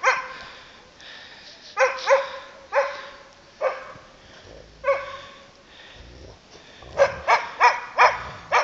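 A dog barking: single barks spaced a second or so apart, then a quick run of about five barks near the end.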